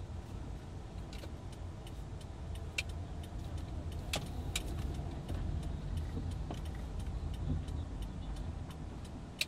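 Inside a car moving slowly in traffic: a steady low rumble of engine and road, with scattered light clicks and rattles from the cabin.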